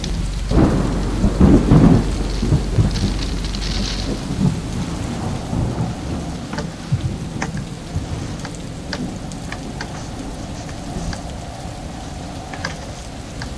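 Storm wind gusting hard against the microphone, loudest between about half a second and two seconds in, then easing, over steady heavy rain with scattered sharp drop hits.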